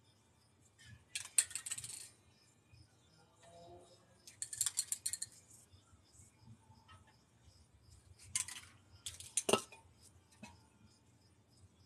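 Aerosol spray paint cans clinking against one another and knocking down on a board as they are picked up and rearranged. The clinks come in several short bursts, with one sharper knock about three-quarters of the way through.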